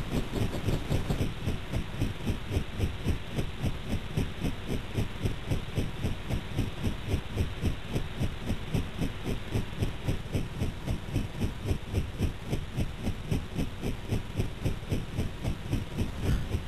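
Helicopter rotor beating in a fast, even rhythmic thump that holds steady throughout.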